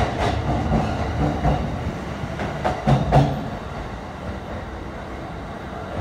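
E259 series Narita Express electric train pulling out, its wheels clacking over rail joints in pairs: one pair at the start and another about three seconds in. The running rumble fades in the second half as the last car moves off.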